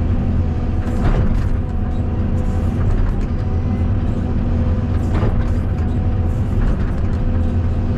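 Caterpillar 320 D2 hydraulic excavator's diesel engine running steadily at working speed, with a couple of brief sharper sounds from the machine about a second in and around five seconds.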